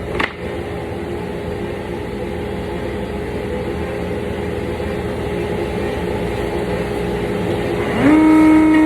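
Steady machine hum with a single knock near the start; about eight seconds in, a router table's router motor is switched on and spins up with a quickly rising whine, then holds a loud, steady high pitch at full speed.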